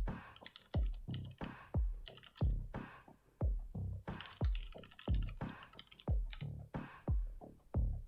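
Electronic background music with a steady beat of deep, downward-sliding kick drums about every two-thirds of a second, and short clicky percussion between them.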